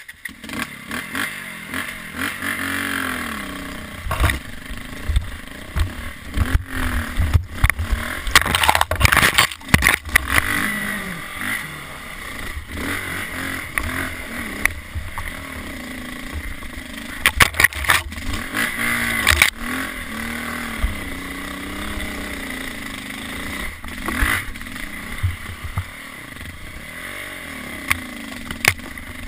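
KTM 400 single-cylinder dirt bike engine revving up and down as it is ridden over a rough trail. Frequent sharp knocks and rattles run through it.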